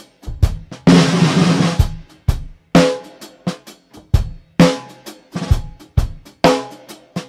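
Drum-kit music: snare and bass drum hits in a steady beat, with one longer crash about a second in.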